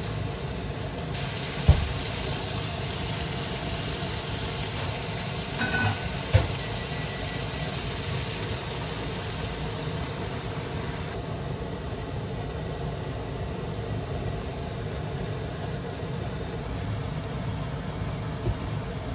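Sliced pork belly sizzling in a frying pan while a spatula stirs it, with a few knocks of the spatula against the pan. About ten seconds in, water is poured into the pan and the sizzle turns duller.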